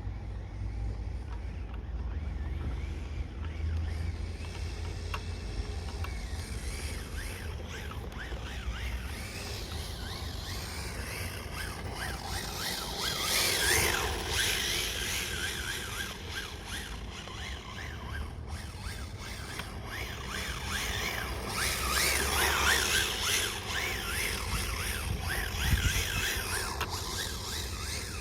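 Radio-controlled car being driven, its motor whining up and down in pitch as the throttle is blipped and released, with two louder passes of hard acceleration. A steady low rumble runs underneath.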